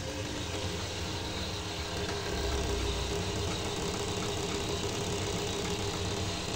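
Industrial straight-stitch sewing machine running steadily with a hum, used with its bobbin case out and needle unthreaded to wind yarn onto a cone; slightly louder about two seconds in.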